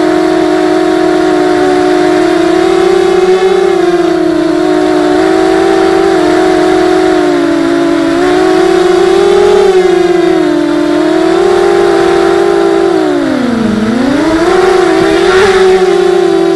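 Mini X 260 quadcopter's four RCX 1804 2400KV brushless motors spinning 5x4 propellers: a loud, steady whine that wavers in pitch with the throttle. Near the end the whine dips sharply in pitch and climbs straight back.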